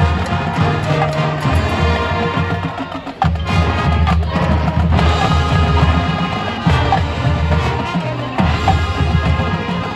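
Drumline performing a rock arrangement: drums and percussion with sustained pitched parts over a heavy low end. The sound dips briefly about three seconds in, then comes back in full.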